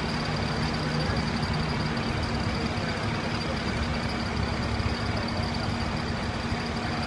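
Fire engine's diesel engine idling steadily at the curb: a constant low hum with a thin high whine above it, and a lower drone that fades out about a second and a half in.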